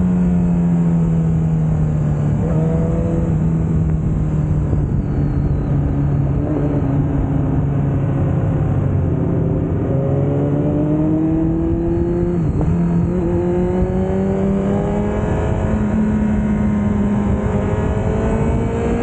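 Sport motorcycle engines running at speed on a winding road, the engine note rising and falling several times as the throttle is rolled on and off through the bends, over a steady rush of wind noise.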